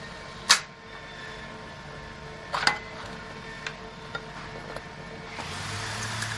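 Sharp metal clicks and knocks from handling a Swagelok Cajon orbital weld head and its tube-clamp fixture, the loudest about half a second in and another pair around two and a half seconds, with a few lighter ticks after. Near the end a steady low hum with hiss starts up.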